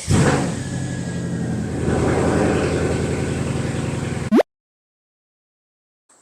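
Car engine running steadily, picking up slightly about two seconds in, then cutting off abruptly after about four seconds with a brief rising sweep.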